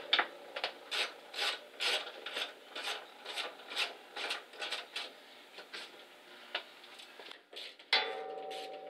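Ratcheting wrench swung back and forth to back a nut off a heater-box stud, a short rasping stroke about twice a second that thins out toward the end.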